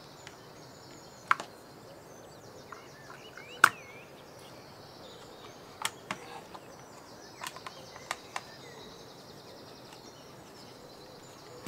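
Scattered sharp clicks and light knocks of plastic and metal as a speaker driver is worked loose from a portable speaker's plastic housing and a screwdriver is handled. The loudest knock comes about three and a half seconds in. A faint steady high hiss runs underneath.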